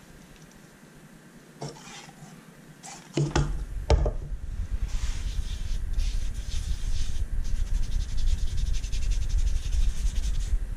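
A rag rubbing dye into the wooden top of a guitar body, starting about three seconds in after a few light knocks, and then going on in quick, repeated strokes with a low rumble of the body and towel moving on the bench.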